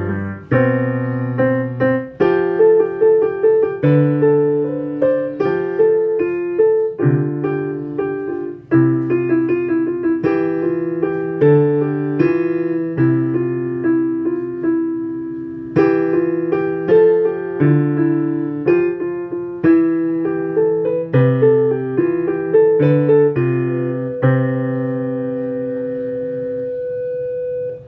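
Digital piano played with both hands: low bass notes under repeated chords, in a steady rhythm. Near the end a final chord is held for about three seconds and then released.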